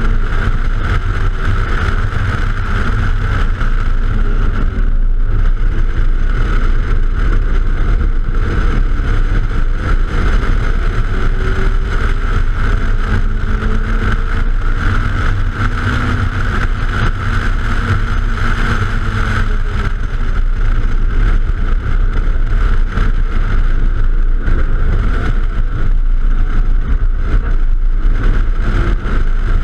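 Silver hatchback's engine at full racing pace, its pitch rising and dropping several times as it revs through the gears and slows for corners. Heavy wind rush on the outside-mounted microphone sits over it.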